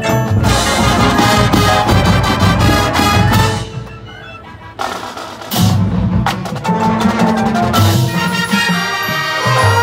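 Marching band playing with brass and a front ensemble of mallet percussion and drums. The full band drops away to a quieter passage a few seconds in, then comes back loud after a sharp hit.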